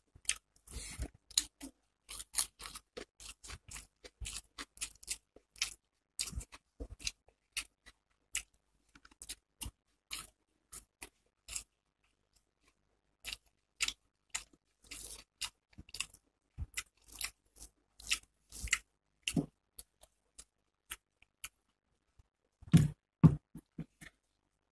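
Close-miked eating sounds of rice eaten by hand: chewing with many short wet mouth clicks, a pause about halfway through, and two louder, deeper sounds near the end.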